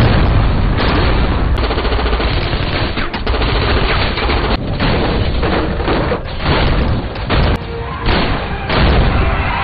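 Dense, rapid gunfire from a film shootout between moving cars, the shots coming in quick succession.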